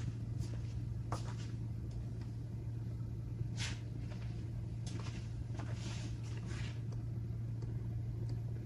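Faint, scattered scratching and rustling of small handwork on a phone, over a steady low electrical hum.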